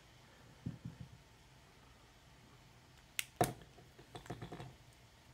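Quiet room tone with light handling noises. A little over three seconds in come two sharp clicks close together, the UV flashlight's switch being turned off, followed by a few small ticks as the steel-bracelet watch is handled.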